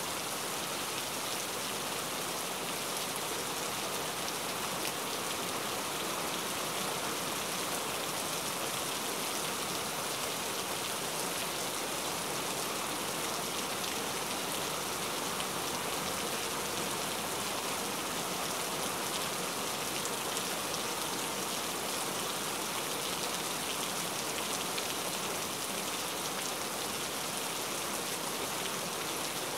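Steady, even rain-like hiss that does not change.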